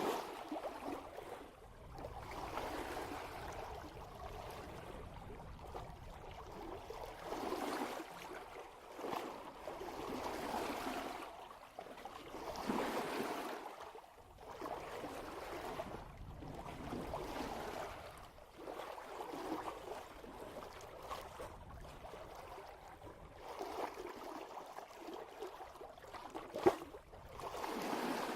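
Water rushing and splashing at the bow of a sailboat moving at about 3 knots, swelling and easing in irregular surges every second or two. There is one brief sharp click near the end.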